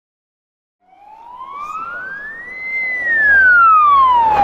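Wailing siren, one slow rise and fall in pitch that starts abruptly about a second in and begins to rise again at the end, sounded by the rally safety car with its roof beacon.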